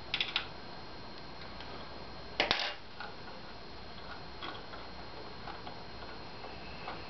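Small clicks and clinks of hand work on the belt clamp and carriage of a MendelMax 3D printer's aluminium-extrusion Y-axis. There is a quick run of clicks at the start and a louder clatter of a few sharp knocks about two and a half seconds in.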